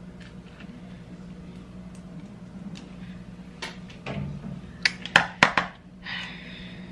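Metal spoon clinking and scraping while scooping avocado flesh into a plastic bowl: a few sharp knocks about five seconds in, then a short scrape. A low steady hum runs underneath.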